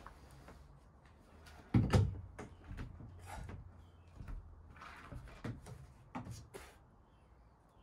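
Dry-tooling ice axes and feet knocking and scraping on a climbing wall's holds as a dynamic move is made. The loudest knock comes about two seconds in, followed by a string of lighter clicks and scrapes.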